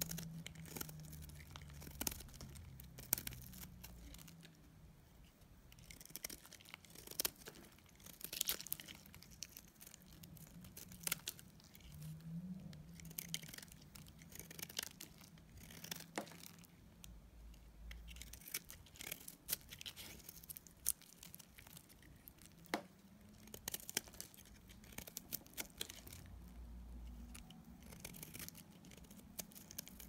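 Blade shaving thin curls off a bar of dry soap: irregular crisp crackles and scrapes as each slice breaks away.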